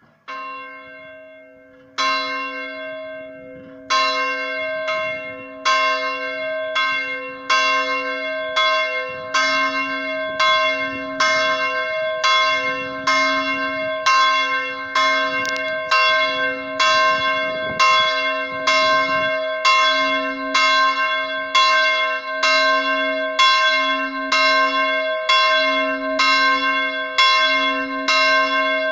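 Swinging church bell in an open belfry being rung as the call to Mass. It starts with two strikes about two seconds apart, then settles into a steady swing of a little over one strike a second, each strike ringing on into the next.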